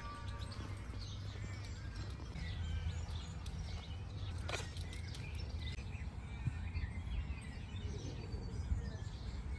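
Outdoor ambience of small birds chirping over a steady low rumble, with one sharp falling whistle about halfway through.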